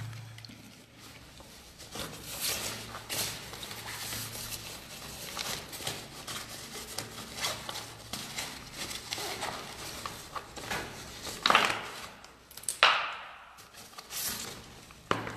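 Handling noise from a phone being carried with its camera covered: rubbing and scattered knocks, a faint low hum for the first few seconds, and a few sharper thumps near the end.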